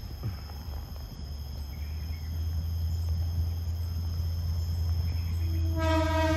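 Diesel locomotive drawing closer, its low engine hum growing steadily louder. Near the end it sounds its horn: first a low note, then a higher, fuller chord a moment later. Insects buzz faintly and steadily.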